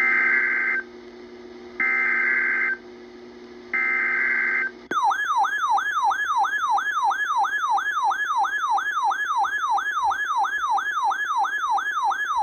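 Emergency Alert System broadcast: three short screeching SAME header data bursts, each about a second long with a pause between. Then, about five seconds in, the alert tone starts, a loud warbling tone sweeping rapidly up and down about three times a second, the attention signal ahead of a tornado watch message.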